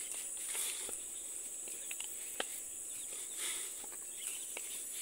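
Steady high-pitched insect chorus, with footsteps swishing through grass and a few short clicks, the sharpest about two and a half seconds in.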